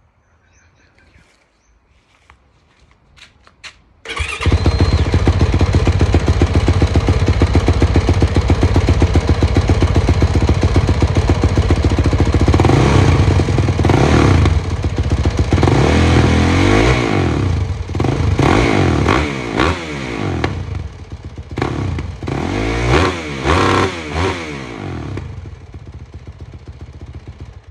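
A 2021 Yamaha YZ450F's single-cylinder four-stroke engine starts about four seconds in and idles with an even, throbbing beat. It is then blipped through a series of sharp revs that rise and fall, and near the end it settles back down.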